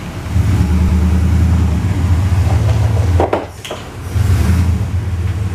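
Engine of a GMT400 GM pickup truck running as it drives slowly in, a deep steady note that drops off briefly about three seconds in and then picks up again.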